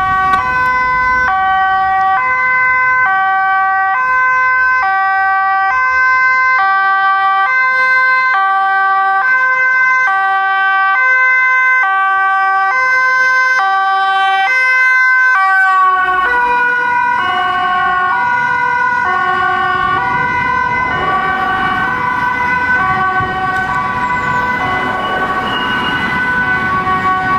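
Dutch two-tone emergency siren of a fire-brigade van, alternating evenly between a low and a high note, each held just under a second. About halfway through, engine and road noise from surrounding traffic rise beneath the siren.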